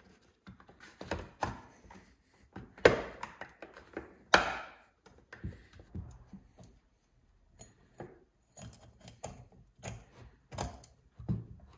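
Handling noises on a Stihl 026 chainsaw: plastic and metal clicks, taps and knocks as its orange air filter cover is fitted and the bar and chain are handled, with two louder knocks about three and four and a half seconds in.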